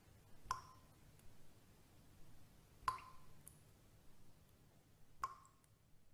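Three faint, sharp plinks about two and a half seconds apart, each ringing briefly at one pitch, over a low hum: a sound effect for a channel logo intro.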